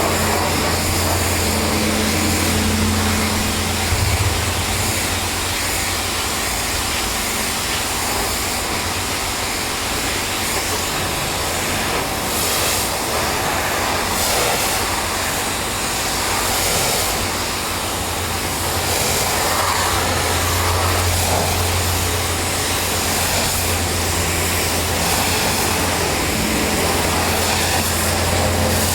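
Pressure washer running steadily: a low engine drone under the even hiss of a high-pressure water spray, with one short knock about four seconds in.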